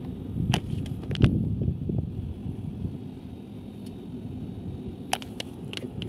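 A few short, sharp plastic crackles from a hand-squeezed water bottle of soapy water, over a steady low rumble.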